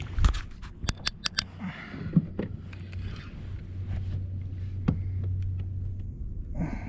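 A small fish being reeled up to a kayak and landed by hand: a quick run of sharp clicks and knocks near the start, then splashing at the surface and scattered ticks, over a steady low hum.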